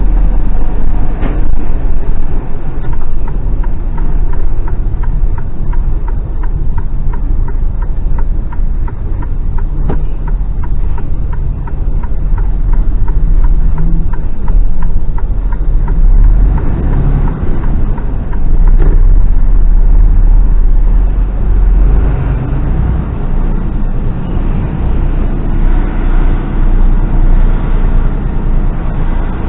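Mercedes-Benz Actros lorry on the move, heard from the cab: a steady low diesel rumble with road noise, getting louder for a few seconds around twenty seconds in. A fast, regular ticking runs through the first half.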